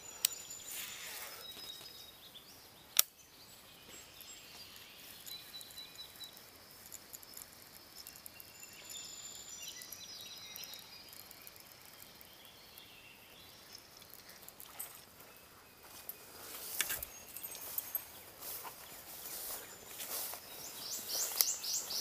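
Outdoor ambience: scattered short bird chirps over a faint steady hiss, with a single sharp click about three seconds in. Rustling of brush and grass grows near the end as the angler pushes through the bank vegetation.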